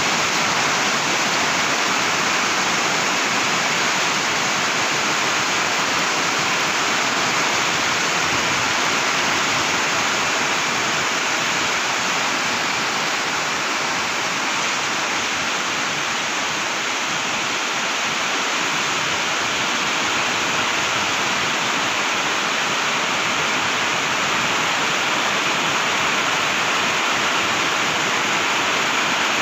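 Heavy typhoon rain pouring down steadily, a loud, even hiss without let-up.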